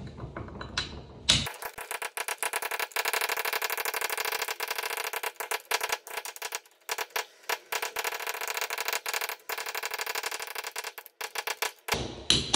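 Hammer tapping a packing iron in a fast run of light taps, packing the poured lead down onto the oakum in a cast iron toilet flange joint. The taps start about a second and a half in and stop near the end.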